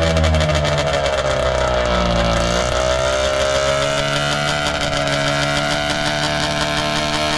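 Vintage snowmobile's two-stroke engine running. Its revs dip about two seconds in, then pick up a little and hold steady.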